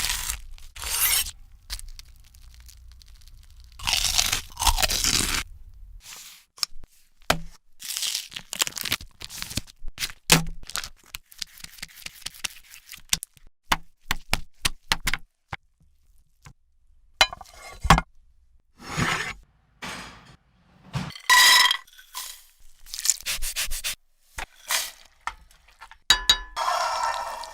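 Food-preparation sounds: a run of separate knocks, cracks, scrapes and light clinks of utensils and food on kitchen surfaces, with a few longer scraping or rustling bursts.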